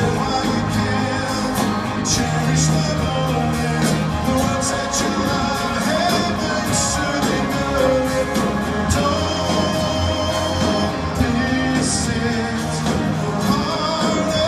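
Music: a Christmas pop ballad played by a band, with singing over it.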